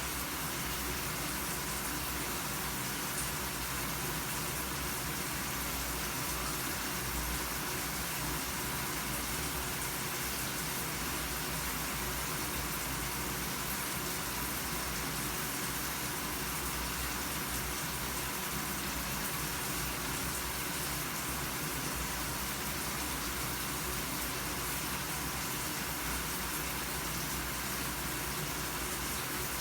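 Shower running steadily, a constant hiss of water spraying from the head and falling.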